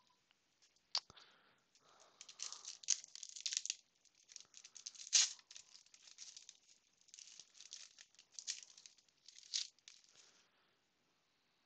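Foil wrapper of a Panini Prizm trading-card pack being torn open and crinkled by hand. A sharp snap comes about a second in, then irregular bursts of crackling crinkle, loudest around the middle, that stop shortly before the end.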